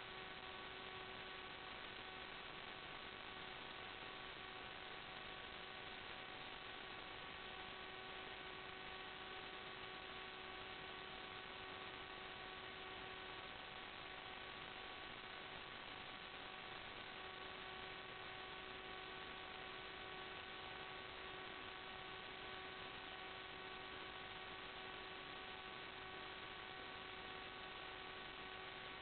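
Steady electrical hiss with a constant buzzing hum made of several fixed tones, never changing in pitch or level: the noise on the audio channel of an analog FPV video link, with no flight sound coming through.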